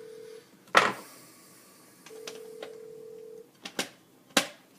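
Sharp clicks of small metal parts as road wheels are fitted onto an RC tank model's suspension arms: a loud click just under a second in and two more near the end. A steady telephone-like tone sounds briefly at the start and again for about a second and a half in the middle.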